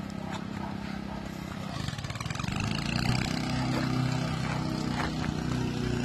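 A motor vehicle's engine running nearby, a low hum that grows louder from about two seconds in, over steady outdoor traffic noise.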